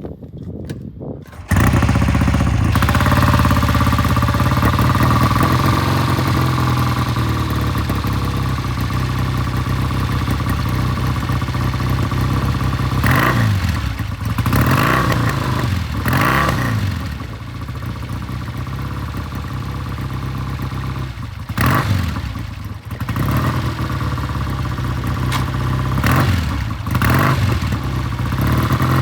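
Vintage British motorcycle engine catching on a cold start about a second and a half in, then running loud and steady, with several throttle blips that rise and fall in pitch.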